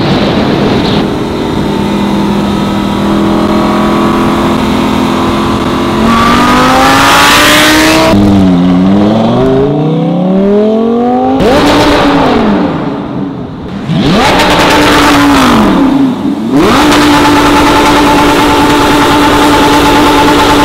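Lamborghini Gallardo's V10 engine accelerating, its pitch climbing through the revs. It then dips and climbs again, is revved in several quick rises and falls, and is held at a steady high rev for the last few seconds.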